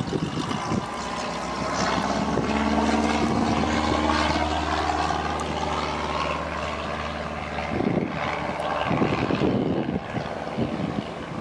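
Cessna 152's four-cylinder Lycoming engine and propeller droning steadily on the takeoff roll and climb-out, heard from a distance. Wind gusts on the microphone cover it in the last few seconds.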